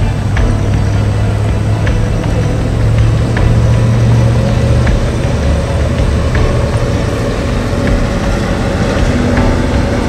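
Steady low rumble of road traffic, with a strong low hum, and a few faint short ticks scattered through it.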